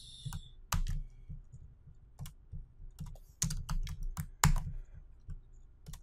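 Computer keyboard keys and mouse clicking: a dozen or so sharp, irregularly spaced clicks, the loudest a little under a second in and about four and a half seconds in, as text is copied and pasted between files.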